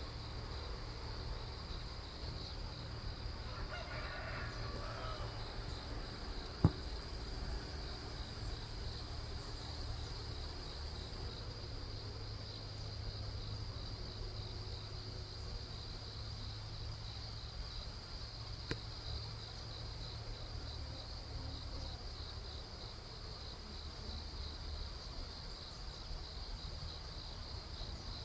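Insects chirping in a steady, high, pulsing trill, over a low rumble. A single sharp click comes about seven seconds in, and a fainter one later.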